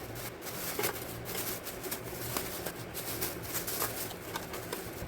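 Short clicks and knocks of a small household holder being unlatched and handled, scattered irregularly.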